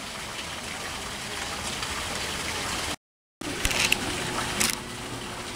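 Steady hiss of water at a zoo pond, which cuts out completely for a moment about three seconds in and then returns with two short, sharp high sounds.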